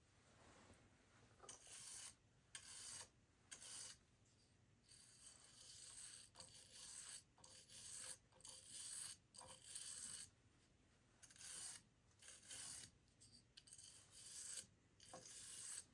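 Faint, irregular scraping and rubbing strokes on the soldered bracelet wires, each under a second long, with short pauses between them.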